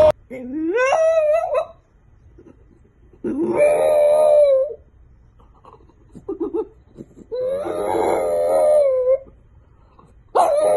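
French bulldog howling: four drawn-out howls, each a second or more long with a wavering pitch, the first sliding up from low before it levels off.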